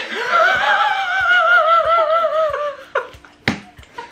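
High-pitched laughter: one long warbling laugh, its pitch bouncing and slowly falling, for about three seconds, then a short sharp sound.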